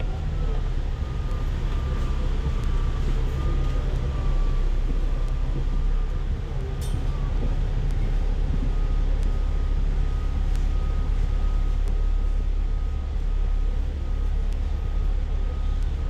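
A city bus's engine and drivetrain running, heard from inside the moving cabin: a steady deep rumble with a thin whine that drops in pitch in the first second and then holds steady. A single sharp click about seven seconds in.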